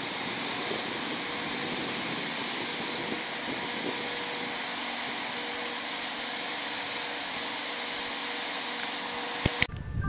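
A steady rushing hiss of outdoor noise, with a faint steady hum under it. Near the end come two sharp clicks, and then the sound cuts off abruptly.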